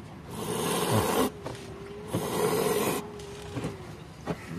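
A feral cat hissing twice, each hiss just under a second long and stopping sharply, with a thin steady growl between them. It is the defensive hiss of a cat that is not yet tame.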